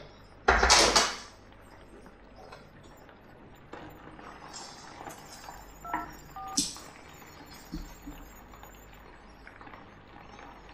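Two mobile phone keypad tones, each a pair of pitches, about half a second apart, as a number is dialled. Earlier, about half a second in, a brief loud burst of noise.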